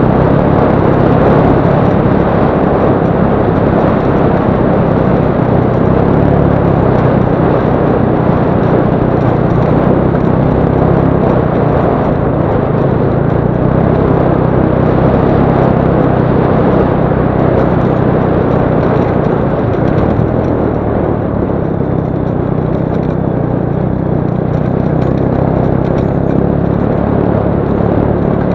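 A motorcycle engine running steadily at low speed on a rough dirt track, under a dense, even rush of wind and tyre noise.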